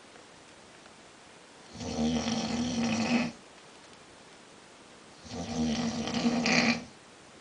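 A man snoring loudly in his sleep: two long snores, each lasting about a second and a half, with a low buzzing pitch, about three and a half seconds apart with quiet gaps between.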